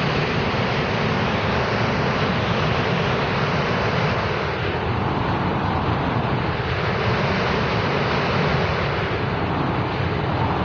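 Iguazu Falls' huge volume of water pouring over the drop, heard as a loud, steady rushing noise with no let-up.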